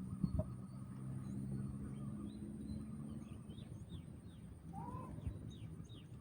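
Small birds chirping outdoors: a quick run of short, falling chirps in the second half, with one lower, slurred note about five seconds in. Under the first half runs a low steady hum, and a faint high thin whine holds throughout.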